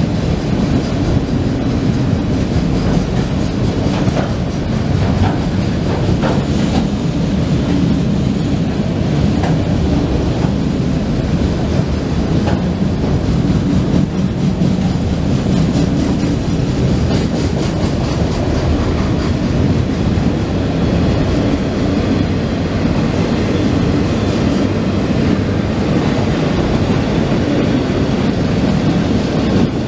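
A freight train of autorack cars rolling steadily past: a continuous rumble of steel wheels on the rails, with clicking as the wheels cross rail joints.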